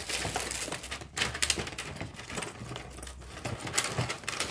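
Rustling and crinkling of crafting materials being handled and searched through, with a few light taps.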